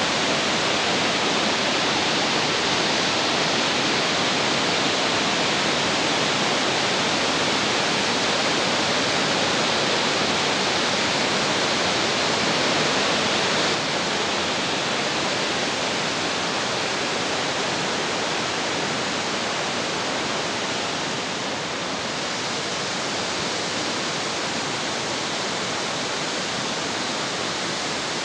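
Rushing water of a fast mountain stream: a steady, dense hiss that drops a little in level about halfway through.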